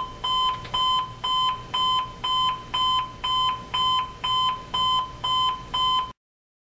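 The GPX C353B clock radio's alarm tone: a single-pitched electronic beep repeating evenly about twice a second, cutting off abruptly near the end.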